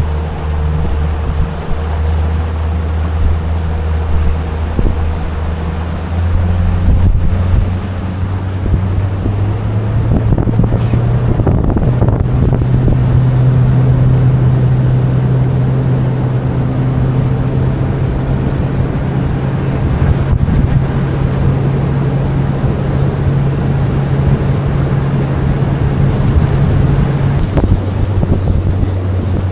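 Honda 90 outboard motor running steadily under way, with wind on the microphone. The engine speeds up in two steps early on, holds there, and eases back off near the end.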